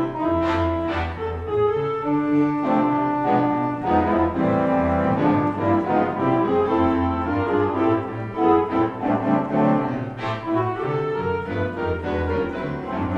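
Wurlitzer theatre pipe organ playing a slow ballad: sustained chords on the manuals over a pedal bass line, the harmony shifting every second or so.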